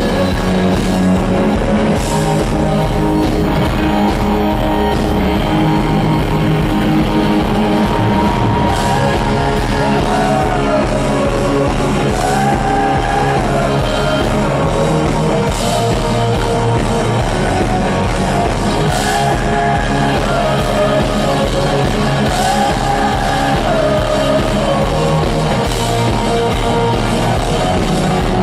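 Rock band playing a song live in concert at full volume, with a melodic line gliding up and down over the full band and occasional cymbal strikes.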